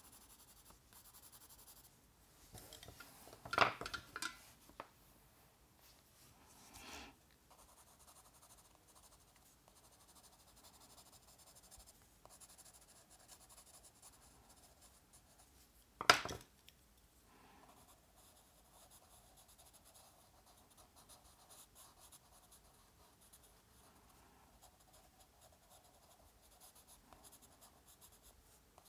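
Faint scratching of a dry watercolor pencil on journal paper as it colors in. There are a few louder knocks a few seconds in, and one sharp knock about halfway through.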